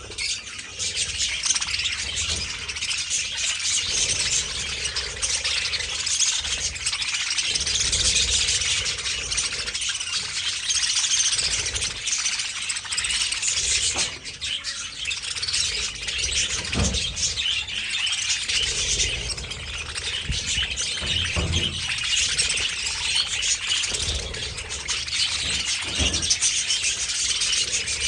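A large flock of budgerigars chattering and chirping all at once, a dense unbroken mass of high chirps from many birds.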